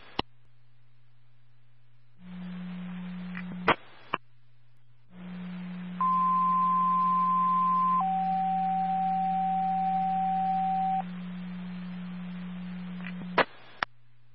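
Fire dispatch radio heard through a scanner. A short keyed-up transmission of bare hiss ends in squelch clicks. A longer transmission then carries a two-tone page: a higher steady tone for about two seconds drops straight to a lower tone held for about three. That is the tone sequence that alerts a fire department before a dispatch. Both transmissions end with sharp squelch-tail clicks.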